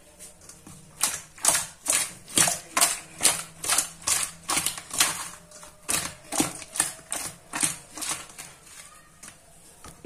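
Raw fish pieces being tossed and mixed with turmeric and spices in a steel bowl for marinating: rhythmic strokes, about two a second, that fade out near the end.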